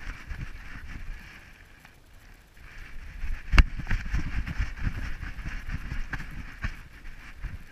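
Bumping and rubbing noise from a GoPro on a dog's harness as the dog moves, with irregular low thumps, a quieter lull about two seconds in, and one sharp knock a little past halfway that is the loudest sound. A steady hiss runs underneath.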